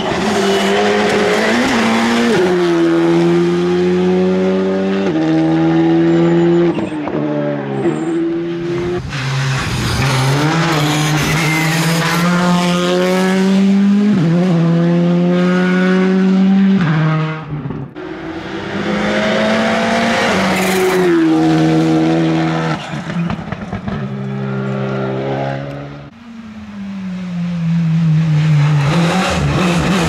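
Rally cars driven flat out on a tarmac stage, one after another. The engines rev hard, and their pitch climbs and drops in steps with each gear change, easing off briefly twice between cars.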